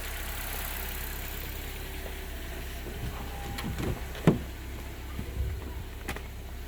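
2015 Honda Civic's 1.8-litre four-cylinder engine idling with a low steady hum, freshly refilled with new oil. A few light clicks and knocks, with one sharp click about four seconds in.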